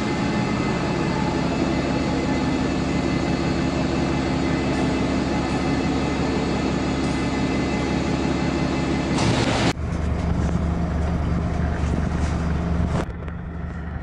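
A bus's diesel engine running steadily close by. About ten seconds in, the sound cuts off suddenly and gives way to a deeper engine hum.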